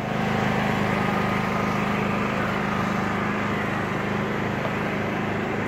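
Generator engine running steadily at a constant pitch.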